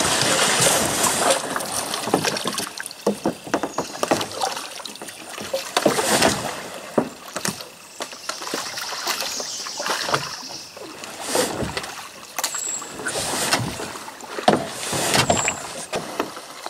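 Kayak being paddled: irregular paddle splashes and sharp knocks, loudest in the first second or so.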